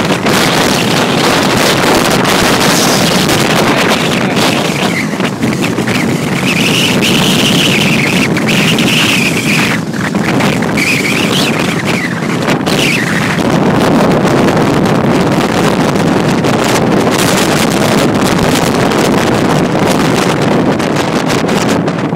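Strong wind gusts buffeting the microphone: loud, continuous, rushing noise. From about five to thirteen seconds in, a high wavering whistle of wind rises and falls over it.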